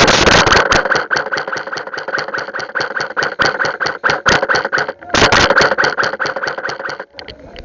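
Airsoft electric rifle firing on full auto: a long burst of rapid, evenly spaced shots, a brief break about five seconds in, then a shorter burst.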